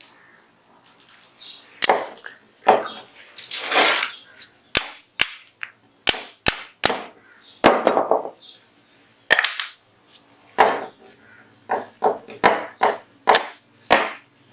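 Parts of a Zigana 36 pistol being worked during disassembly: about a dozen sharp clicks at irregular intervals, mixed with short scraping rasps.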